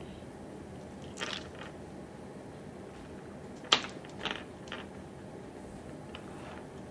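Pearl beads and fishing line being handled: a few small clicks and rustles as beads knock together and the line is pulled through, the sharpest click a little under four seconds in, over a steady low hiss.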